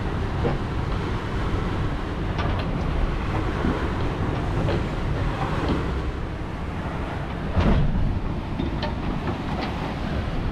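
Aluminium catamaran sailing at about nine knots in strong wind: a steady rush of wind and water with a deep rumble and scattered knocks, the loudest about eight seconds in.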